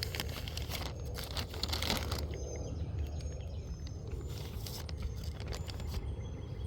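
Outdoor ambience: a steady low rumble of wind on the microphone, with crackly rustling in the first two seconds and faint high bird chirps after that.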